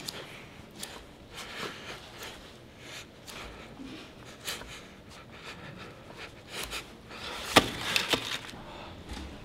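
A pencil and a crumpled paper ball handled on a wooden classroom desktop: scattered light taps and rustles, with one sharp loud click about seven and a half seconds in and a few quicker clicks just after.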